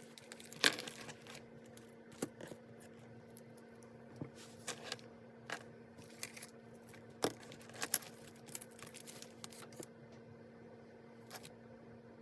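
Paper and stationery being handled on a desk: irregular clicks, taps and short paper rustles, with a few sharper clicks, over a faint steady hum.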